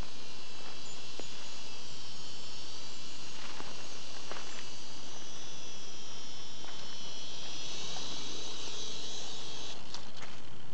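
High-pitched whine of a small toy RC helicopter's twin electric main-rotor motors and tail rotor in flight, changing pitch near the end and dying away about ten seconds in as it comes down. Scattered crunches of footsteps on dry leaves.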